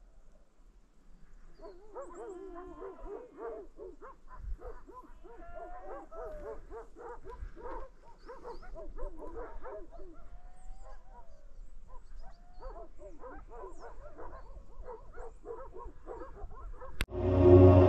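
A group of sheepdogs barking and yelping together, many short overlapping calls with a few drawn-out yelps sliding in pitch. Music comes in loudly near the end.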